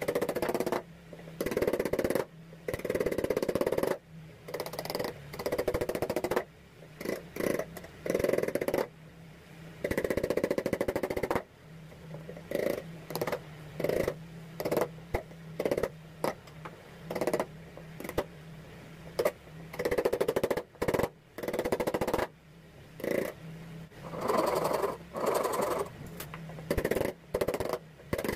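Wood chisel cutting into a hardwood handle blank held in a vise: a series of irregular chipping cuts, some sharp clicks and some rougher scrapes of about a second each, with short pauses between. A faint steady low hum runs underneath from partway in.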